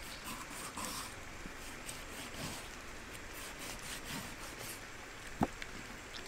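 Kitchen knife scoring the skin of a raw pork leg on a wooden cutting board: soft cutting and scraping, with one sharp knock about five seconds in.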